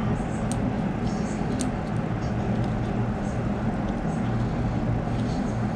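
Faint light clicks of a small RC truck differential's metal gears and locker being turned and handled, over a steady low hum.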